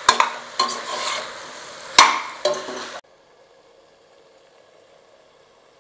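A perforated steel spatula stirs and scrapes mushrooms frying in masala in an aluminium pressure cooker, with a sizzling hiss and several sharp clinks against the pot: the mushrooms are being sautéed until their water cooks off. About three seconds in it stops abruptly, leaving only a faint steady background.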